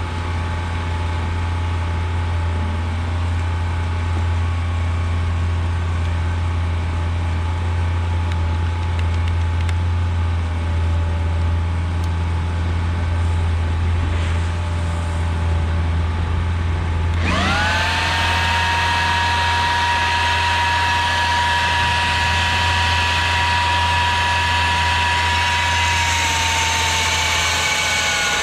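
Low steady hum, then about two-thirds of the way through an electric core drill motor spins up quickly to a steady high whine, its pitch sagging slightly near the end.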